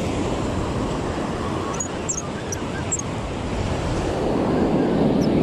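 Ocean surf washing onto the beach, a steady rushing that grows a little louder near the end, with some wind on the microphone.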